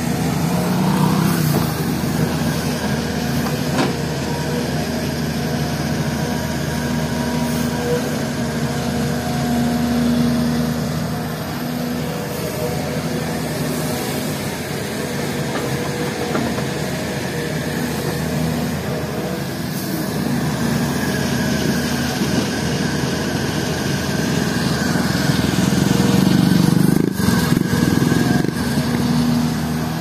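SDLG E6210F crawler excavator's diesel engine running steadily as it digs and loads soil, with a motorcycle passing about a second in. Near the end the sound gets louder, with a few sharp knocks.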